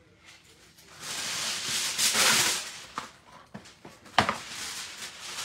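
Aluminium foil being pulled off the roll and torn off: a long crinkling rustle starting about a second in, then a few sharp crackles with one loud snap just past four seconds, and lighter crinkling as the foil is pressed over the pot.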